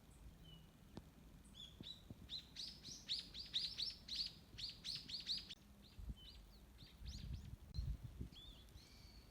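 A songbird singing: a quick run of about a dozen high, falling notes, then a few softer scattered calls.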